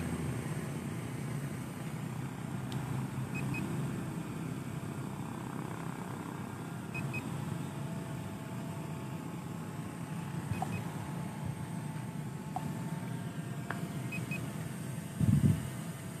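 Steady outdoor rumble and hiss with a faint hum, and a short high double beep about every three and a half seconds. A brief loud low bump comes near the end.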